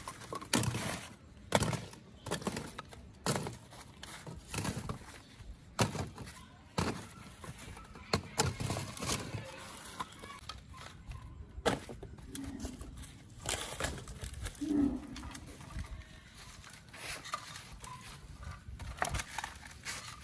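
Dry wooden sticks knocking and clattering as they are picked up, handled and dropped, a series of irregular sharp knocks.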